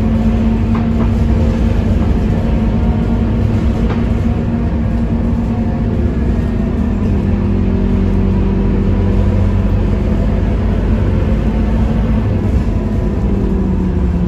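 Scania K230UB Euro 4 city bus heard from inside the passenger cabin while under way: the rear-mounted diesel engine runs with a steady drone over road rumble. Its pitch eases down slightly midway and drops again near the end.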